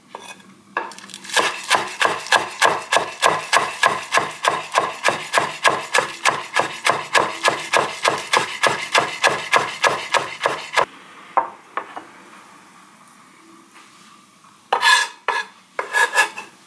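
Kitchen knife chopping green onions on a wooden cutting board: a fast, even run of about four chops a second for some ten seconds, then it stops. Two short bursts of chops come near the end.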